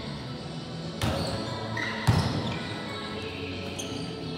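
A volleyball being struck by hand twice, a sharp slap about a second in and a louder one about two seconds in, each ringing on in the echo of a large gymnasium.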